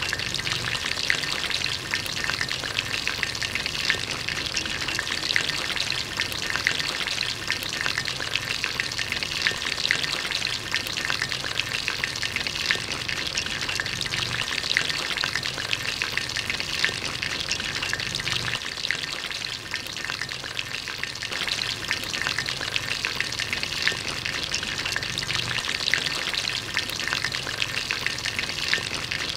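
Hot oil sizzling steadily, with a dense, fast crackle, as battered pieces deep-fry in a pan.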